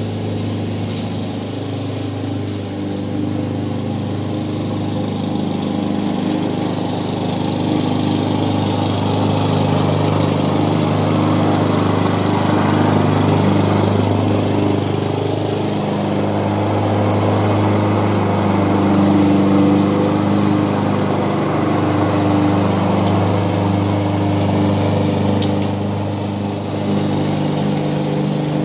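Walk-behind lawn mower running steadily as it cuts tall grass, getting louder through the middle as it passes close by, then easing off.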